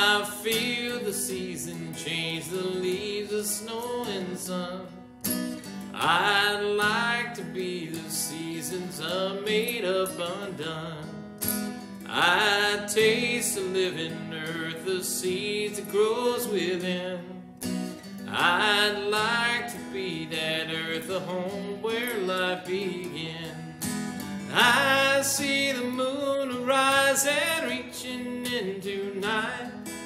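A man singing a slow folk song with his own strummed acoustic guitar, in phrases a few seconds long with short breaths between them.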